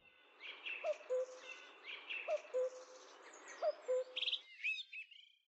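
Birdsong: a low hooting call repeated three times, about a second and a half apart, with higher chirps and a short rapid trill from other birds over it. It all stops shortly before the end.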